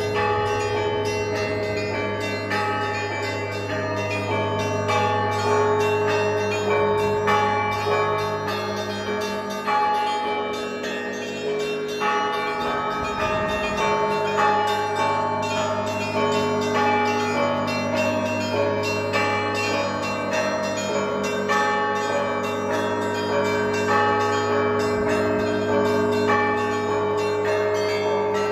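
Orthodox monastery church bells ringing together: many bells struck in quick rhythmic succession, their tones overlapping over the steady low hum of a large bell.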